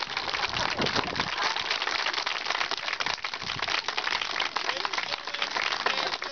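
Crowd of guests applauding, many hands clapping in a dense steady patter, with a few voices calling out over it.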